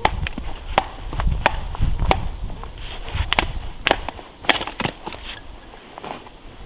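An axe striking and splitting firewood: a quick, uneven series of sharp wooden knocks as the blade bites and the pieces crack apart.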